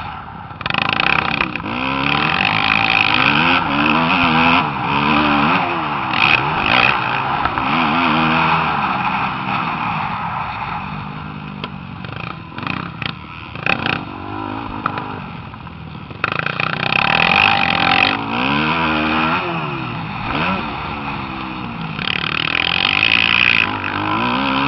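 Motocross dirt bike engine riding the track, its pitch rising and falling over and over as the throttle is opened and shut through the jumps and corners, over a steady rushing noise.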